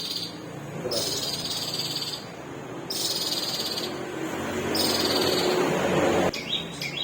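Long-tailed shrike (cendet) singing in repeated buzzy, high phrases about a second long with short breaks between them, over a rough lower background noise that swells and then cuts off suddenly about six seconds in.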